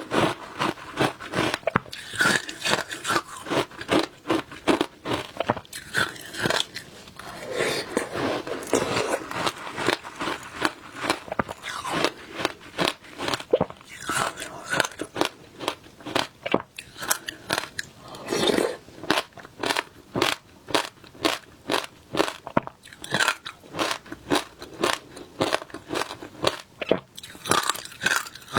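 Close-up crunching and chewing of shaved ice: a quick, steady run of sharp bites and crunches, several a second.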